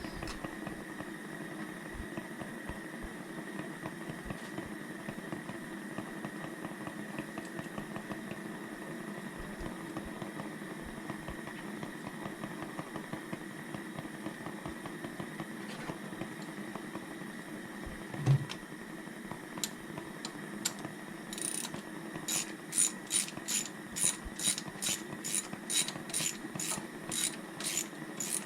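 A socket ratchet clicking in short, even strokes, about two clicks a second, as a spark plug is turned; it starts about two-thirds of the way in. Before that only a steady low hum, with a single thump.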